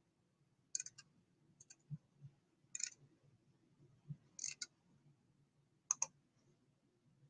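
Faint, irregular light clicks, about six of them spread over several seconds, some in quick pairs.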